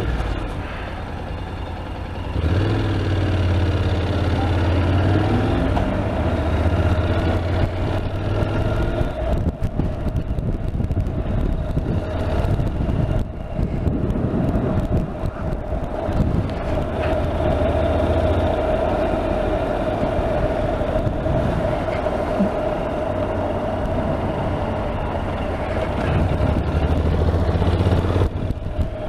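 Honda NC750X motorcycle's engine running on the road, rising in pitch as it picks up speed about two seconds in, then holding a steady drone with wind and traffic noise.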